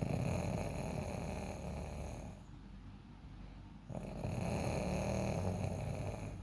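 A sleeping person snoring: two long snores, each about two and a half seconds, with a pause of a second or so between them.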